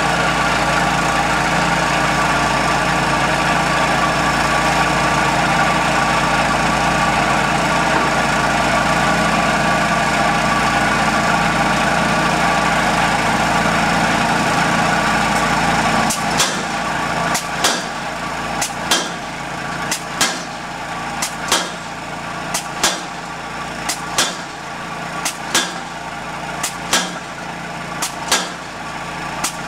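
A steady engine drone for about the first half, then a 600 lb pneumatic piling hammer striking the top of a wooden dock piling, driving it into the mud: about ten sharp blows, a little more than a second apart.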